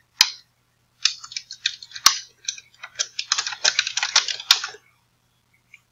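Typing on a computer keyboard: one click, then a fast run of keystrokes lasting about four seconds, with a few sharper, louder clacks among them.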